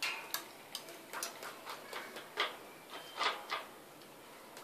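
Irregular clicks and short clattering crunches from a puppy in a wire crate as it moves about and noses into its plastic food bowl. The loudest come about two and a half seconds in and just after three seconds.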